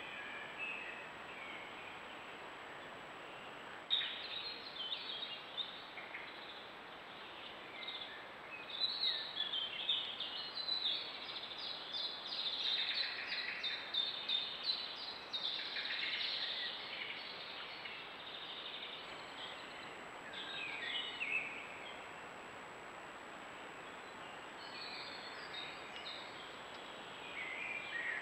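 Small songbirds singing in the woods: overlapping chirps and trills, busiest from about four seconds in to the middle, then sparser, over a steady background hiss and a thin, steady high tone.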